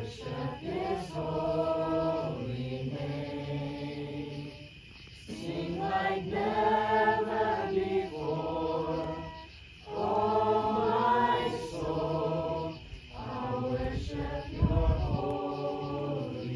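Background music: a group of voices singing long held, choir-like phrases.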